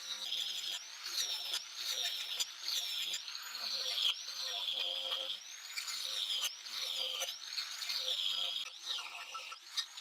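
Back-and-forth rubbing on metal that gives a high squeal rising and falling with each stroke, about once a second.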